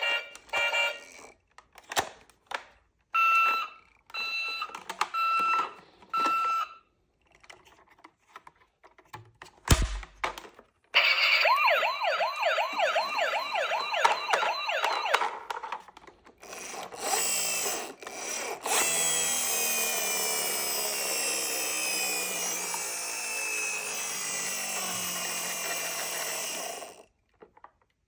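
Battery-powered toy emergency vehicles' electronic sound effects. First comes a run of short beeps broken by clicks, then a thump. After that a fast warbling siren plays for about four seconds, and later a long electronic siren sound slowly falls in pitch before cutting off.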